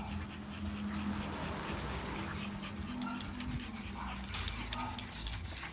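A dog whimpering, with a few short whines, over a steady low hum.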